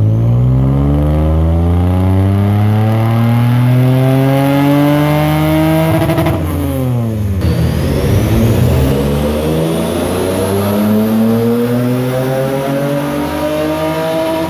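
Toyota 1MZ-FE V6 with aftermarket headers and exhaust revving under full throttle on a chassis dyno, its pitch climbing steadily through the rev range for about six seconds. The note then drops away quickly and climbs again in a second full-throttle pull.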